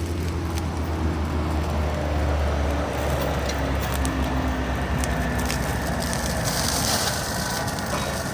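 Yanmar ViO55 excavator's diesel engine running steadily under load while its FEMAC flail mulcher head spins and shreds tall grass. Scattered ticks of debris sound through it, and the chopping noise grows louder near the end.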